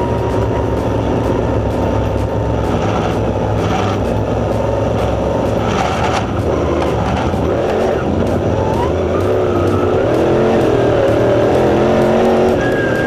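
Dirt late model's crate V8 running hard at racing speed, heard from inside the car. Its pitch rises and falls over the last few seconds.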